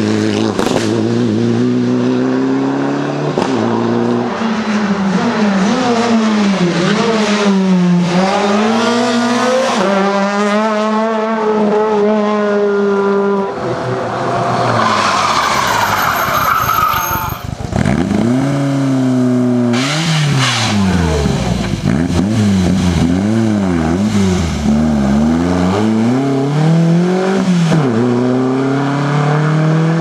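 A Mitsubishi Lancer Evolution rally car's turbocharged four-cylinder engine revs up and falls back through its gear changes as it passes. About halfway through, a classic Škoda rally saloon slides through a corner with tyres squealing, then its engine revs up and down repeatedly as it drives off.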